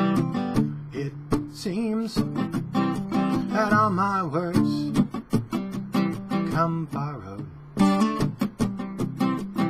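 Acoustic guitar strummed in a steady rhythm, with a man's voice singing a couple of wavering phrases in the middle.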